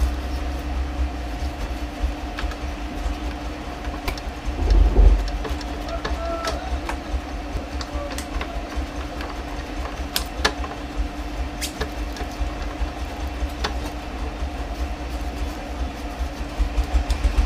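Light plastic clicks and ticks from an opened Epson L3110 inkjet printer's mechanism as its paper-feed gear and roller are turned by hand, over a steady low hum. A louder rough rattle comes about five seconds in.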